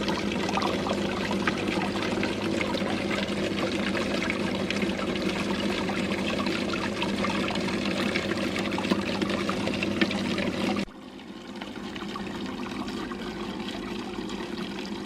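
Water pouring and trickling down a cement waterfall into an aquarium, over a steady low hum. About eleven seconds in the sound drops abruptly to a quieter level.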